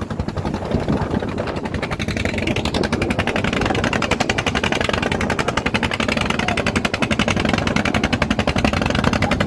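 Motorised outrigger fishing boat's engine running under way, a fast, even putt-putt of rapid firing pulses that grows a little louder and clearer after about two seconds.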